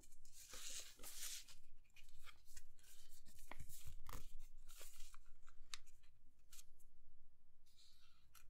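A sheet of graph paper being handled and folded by hand on a cutting mat: rustling and swishing as it is moved and folded, with many short crackles and ticks as the creases are pressed down.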